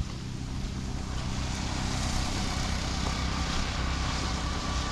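Rain falling on a flooded concrete road, with wind rumbling on the microphone. A vehicle's tyres hiss through the standing water, swelling about a second in and easing near the end.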